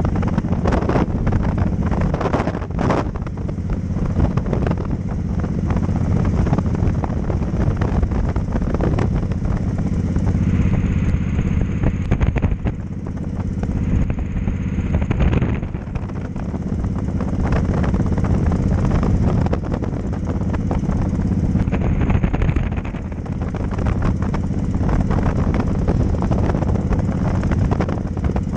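Cruiser motorcycle engine running steadily at road speed, with wind rushing over the microphone. The engine hum eases briefly a few times.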